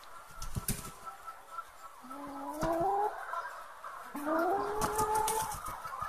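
Laying hen giving two drawn-out calls that rise in pitch: the first about two seconds in, and a longer one about four seconds in. A few short knocks come just before the first second.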